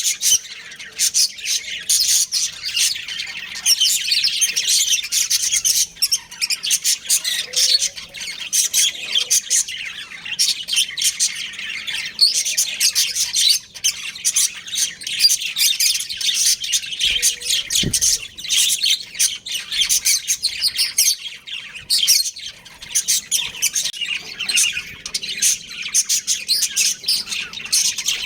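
Budgerigars chirping and chattering without pause, many quick overlapping calls.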